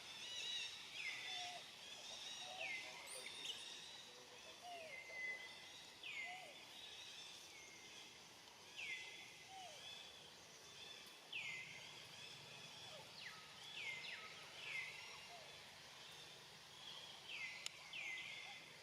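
A bird calling over and over, each call a quick downward sweep, roughly one every second or so, over a faint outdoor background.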